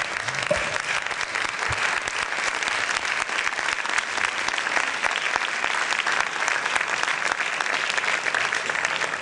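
Audience applauding, with a dense, steady patter of many people clapping.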